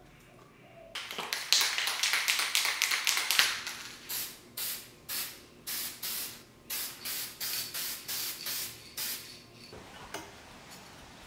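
Aerosol spray-paint can spraying paint: a continuous hiss for about two and a half seconds, then about a dozen short bursts at roughly two a second.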